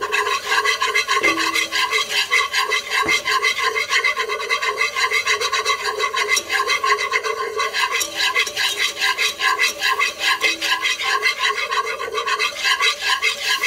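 Wire whisk beating flour into melted butter in a pot, a quick rhythmic scraping of about four strokes a second against the pot bottom as the roux is worked smooth.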